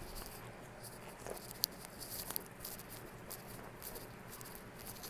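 A person chewing a bite of a breaded chicken sandwich: faint irregular mouth clicks and small crunches, one sharper tick about a second and a half in.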